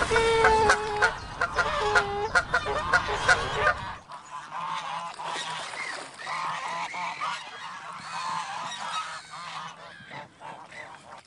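A flock of flamingos honking, many short calls overlapping; the calling drops to a softer level about four seconds in.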